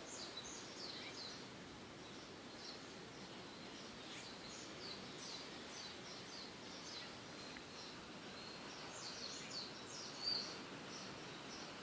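Small birds chirping: many short, high notes in quick succession, with one louder note about ten seconds in, over a steady low background hiss.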